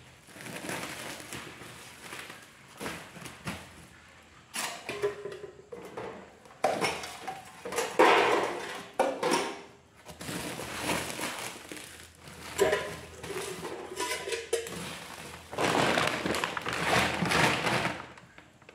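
Plastic shopping bags rustling and crinkling in irregular bursts as groceries are handled and packed into a cupboard, with a few knocks of packages and pots.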